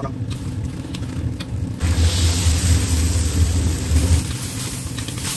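Sour porridge in hot oil in a wok, sizzling and bubbling as a metal spatula moves through it. Under it runs a steady low rumble, which swells with the sizzle from about two to four seconds in.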